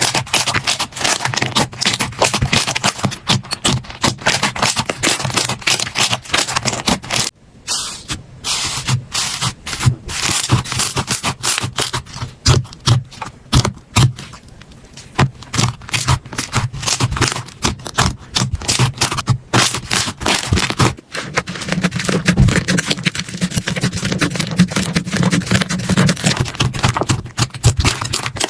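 Slime being squeezed, poked and stretched close to the microphone: dense crackling and popping clicks and squelches, pausing briefly about a quarter of the way through.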